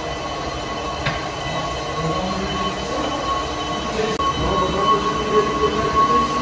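Steady workshop machinery: a low rumble with a held high whine, and a sharp metallic click about a second in.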